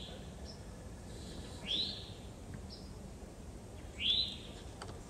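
A bird calling: a short, rising, arching note repeated three times about two seconds apart, with a few fainter high chirps between.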